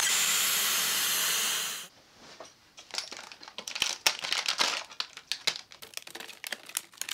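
Vacuum cleaner running loud, pulling heated plastic sheet down over a wooden mould to vacuum-form it; it cuts off abruptly a little under 2 s in. After that, thin clear plastic sheet crinkles and crackles as it is peeled off the mould and snipped with scissors.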